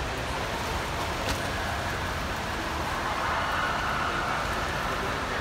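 Water splashing at the edge of an indoor pool, with a sharp splash about a second in, over a steady noisy wash of pool-hall ambience.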